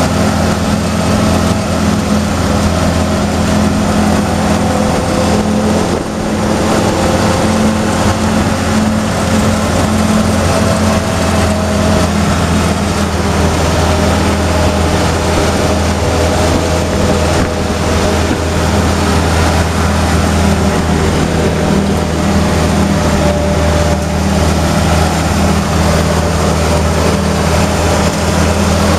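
M151A2 military jeep's four-cylinder engine running steadily at cruising speed, heard from inside the open-topped jeep, with a noisy rush of wind and road noise over the engine drone.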